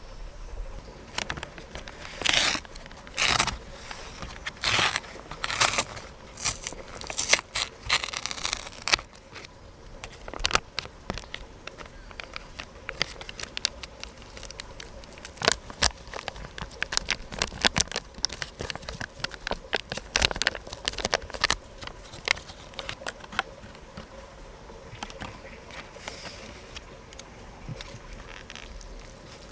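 Plastic food packaging crinkling and tearing open in loud, irregular rustles, then chopsticks clicking and scraping against a disposable food container as the food is mixed. The clicks thin out over the last several seconds.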